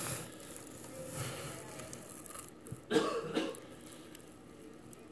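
A person gives a short throat-clearing cough about three seconds in.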